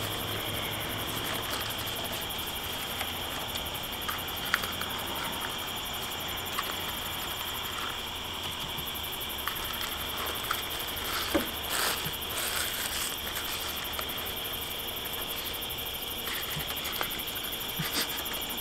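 Steady high-pitched chorus of night insects, with scattered soft clicks and rustles of people eating.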